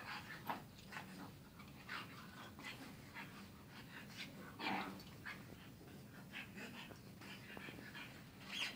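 Pug and shar pei puppies play-wrestling: short, faint breathy dog noises and scuffles in brief bursts, the loudest about halfway through, over a faint steady hum.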